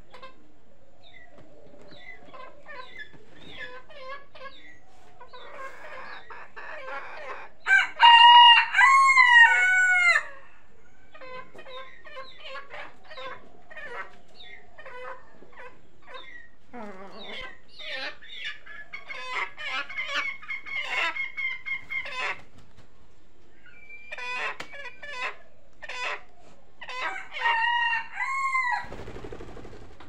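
Chickens clucking while they feed, with a rooster crowing loudly about a third of the way in and again, more quietly, near the end.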